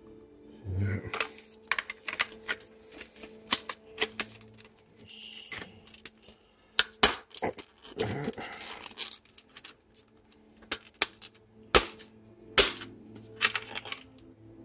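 Hard plastic toy parts clicking and clacking as a saddle is pressed and worked onto an action-figure creature's back, with sharp irregular clicks, the loudest about seven seconds in and twice near twelve seconds. The saddle's tabs are not snapping into place.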